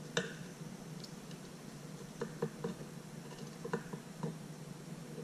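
Metal fork cutting through a fried fish fillet and clicking against the plate beneath. There is one click right at the start, three quick clicks a little after two seconds in, and two more around four seconds.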